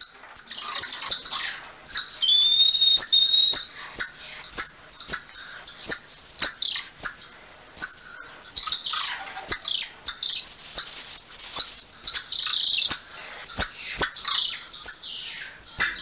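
Golden lion tamarin calling: a run of high chirps and squeaks, with two long, steady high whistles, one a couple of seconds in and one about eleven seconds in. Sharp clicks sound among the calls.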